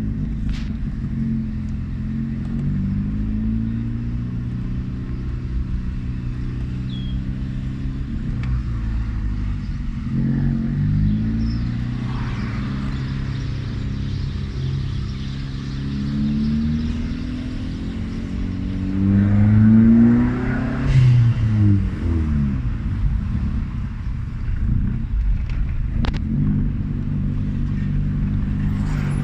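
2003 Audi A3's engine and exhaust idling and being revved several times. The biggest rev, about two-thirds of the way through, climbs, then drops back to idle.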